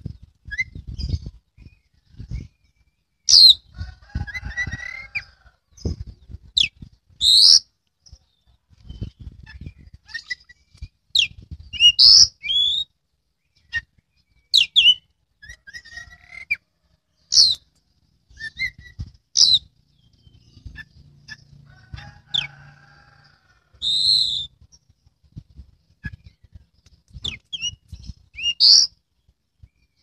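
Oriental magpie-robin (kacer) singing: loud, sharp, high whistled notes every two to three seconds, with softer chirps and twitters between them. A low rumbling noise comes and goes underneath.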